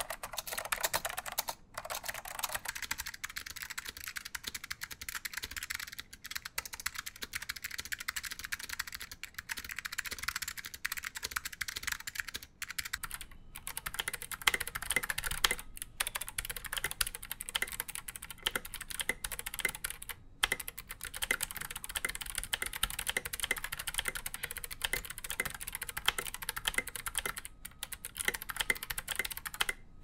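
Steady, fast typing on clicky mechanical keyboards, a dense stream of sharp key clicks. A vintage Chicony KB-5162F is heard for the first couple of seconds, then a Hasu board in a Keyboardbelle case, then from about 13 seconds in an XD87 tenkeyless custom board, each with a different click character.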